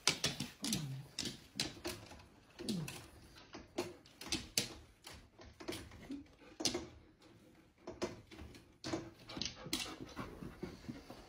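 Husky whining and whimpering over and over in short excited calls, several sliding down in pitch.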